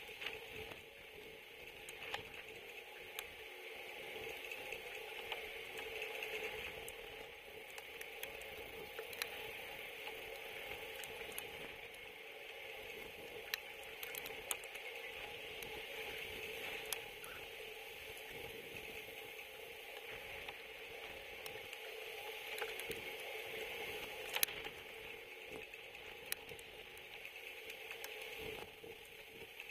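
Rain and wind on the camera's housing: a steady hiss that swells and eases every few seconds, with scattered sharp ticks of drops and a faint steady hum underneath.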